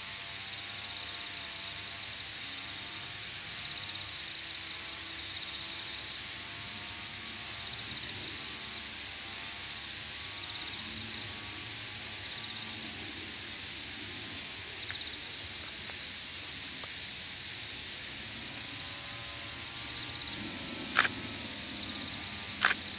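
Steady, high insect chorus in a rural summer field, with two sharp clicks close together near the end.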